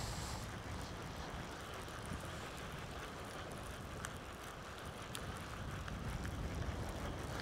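Wind buffeting the microphone, a steady low rumble, over the soft wash of a calm sea on a shingle beach, with a few faint clicks.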